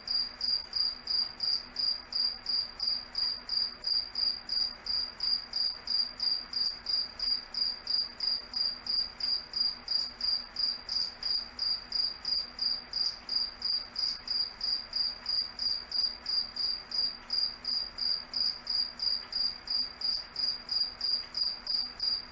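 A cricket chirping steadily, short high-pitched chirps repeating at an even rhythm of about three a second.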